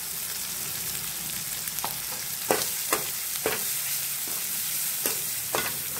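Onion-tomato masala sizzling steadily in hot oil in a metal kadai as chilli powder is stirred in. A perforated metal spatula knocks and scrapes against the pan several times in the second half.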